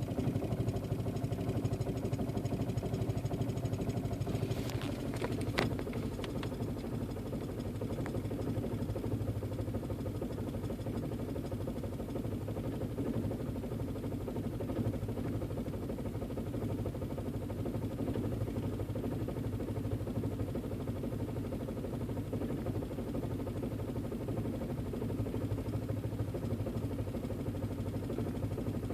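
Volkswagen 1.8T (AWW) turbocharged four-cylinder engine idling roughly. A few sharp clicks sound about five seconds in.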